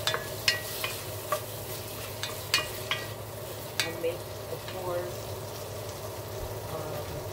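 Diced tomatoes sautéing in oil in an enamelled cast-iron pot, sizzling steadily, while a wooden spoon stirs them and knocks against the pot several times in the first four seconds; after that the sizzling goes on alone.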